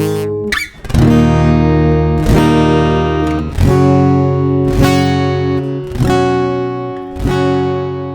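Steel-string acoustic guitar, the Giannini SF14, strummed in slow chords about once every second or so, the last chord left ringing and fading.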